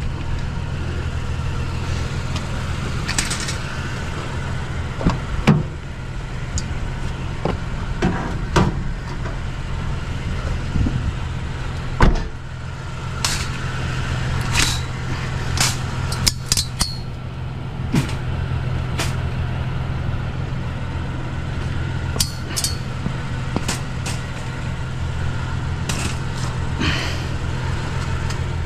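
Scrap being handled: irregular metallic clanks and knocks, a few leaving a brief high ring, over a steady low hum.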